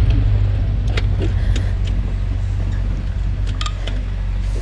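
Road roller's diesel engine idling steadily, with a few light metallic clicks over it. It is running again now that its clogged fuel banjo-bolt screen filter has been cleaned.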